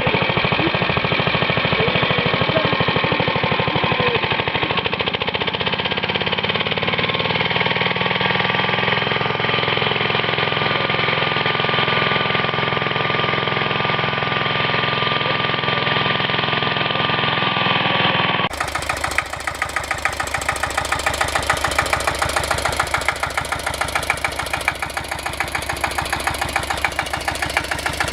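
Walk-behind tractor engines running with a rapid, even beat. About two-thirds of the way through, the sound switches abruptly to a different engine with a similar fast, knocking rhythm.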